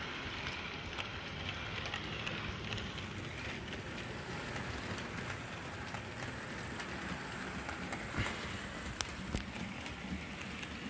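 HO scale model freight cars rolling along plastic-roadbed sectional track: a steady rattling rumble of wheels with scattered sharp clicks, a couple of louder ones near the end.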